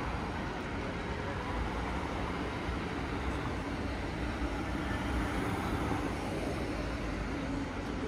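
Busy city street ambience: cars passing close by over a steady traffic rumble.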